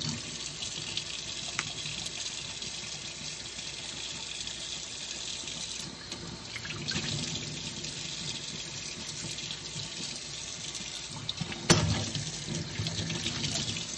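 Kitchen faucet running steadily into a stainless steel sink, the stream splashing over a cooked lobster being rinsed by hand. A single sharp knock near the end.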